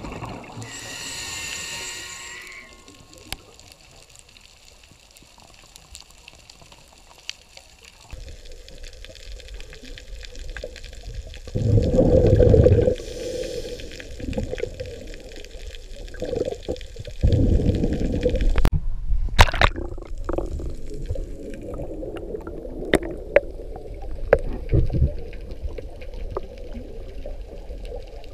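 Muffled underwater sound picked up through a camera housing: rushing, bubbling water noise that surges loudly twice, about twelve and seventeen seconds in, with scattered clicks. A brief high tone sounds near the start.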